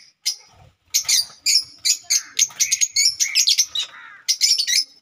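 Lovebirds chirping, a rapid string of short, high calls that starts about a second in and carries on almost to the end.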